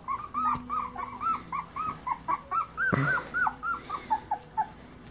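Very young beagle puppies whimpering: a steady run of short, high-pitched cries, about three a second, each rising and falling, that fade out near the end. A soft thump about three seconds in.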